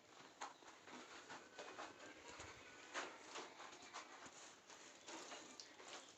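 Faint, irregular tapping and shuffling of goats' hooves on the floor.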